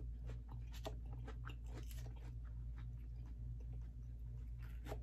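Close-up chewing and crunching of a mouthful of fresh salad, a quick run of short wet crunches, over a steady low hum.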